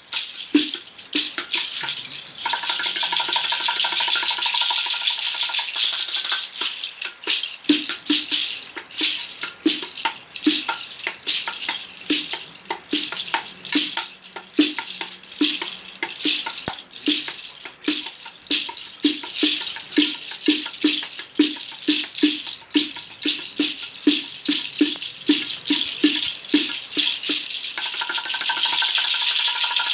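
Hand percussion: a shaken rattle played in a steady rhythm, with a low knock about twice a second marking the beat. A held tone sounds briefly a couple of seconds in and again near the end.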